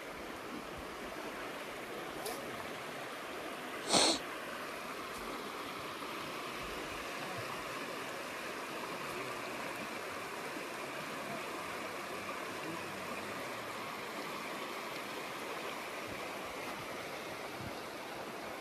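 Fast, shallow trout stream running over rocks and riffles: a steady rushing hiss of water. About four seconds in, one short, sharp high-pitched sound stands out above it.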